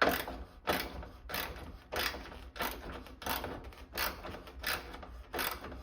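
Ratchet wrench clicking in short, regular strokes, about one every two-thirds of a second, as a heat-loosened nut is backed off its stud.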